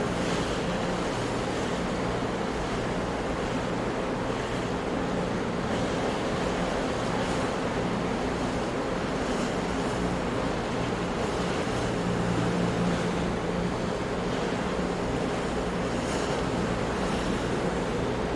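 Ocean surf breaking on rocks in a steady, even wash of white noise, with small splashes standing out now and then.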